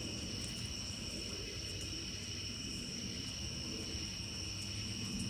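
Night insects such as crickets trilling steadily in a high, unbroken tone, over a low rumble of background noise.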